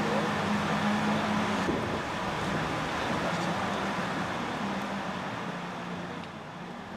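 Steady low machinery hum over a broad rushing noise, easing off slightly near the end.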